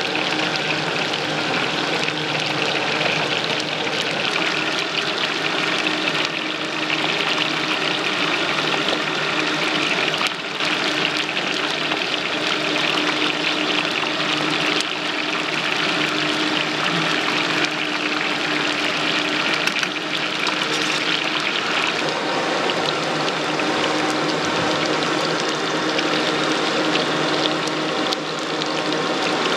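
Stinky tofu blocks deep-frying in a wok of hot oil: a loud, steady sizzle and crackle of bubbling oil, with a faint steady hum underneath.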